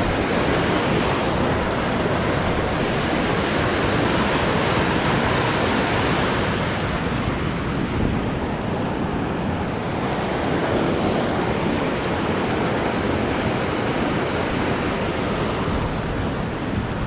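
Steady rushing of a swollen, fast-flowing river running high over and past a slab crossing.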